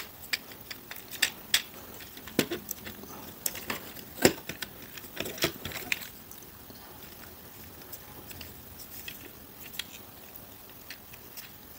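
Plastic parts of a Transformers Studio Series Ratchet action figure clicking and clacking as they are pushed and shifted into position during transformation, the clicks coming thickly for the first six seconds and more sparsely after.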